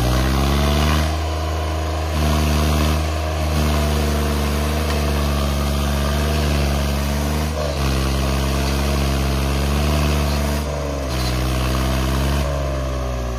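Swaraj 855 FE tractor's three-cylinder diesel engine running at high revs under heavy load, straining to pull a stuck, loaded trolley. The engine note climbs in the first second, holds with small dips, and falls away near the end.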